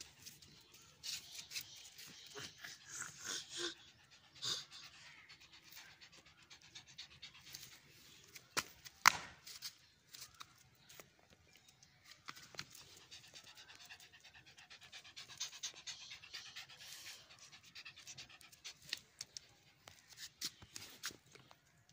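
Small dog panting in quick, faint puffs, in runs. A single sharp knock sounds about nine seconds in.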